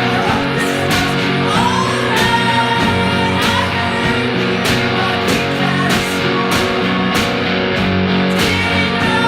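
Rock song with electric guitar, a steady drum beat and singing.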